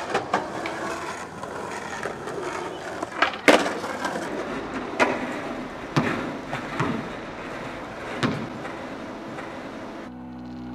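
Skateboard wheels rolling on concrete, with four sharp knocks from the board a few seconds in and near the end. Music begins just before the end.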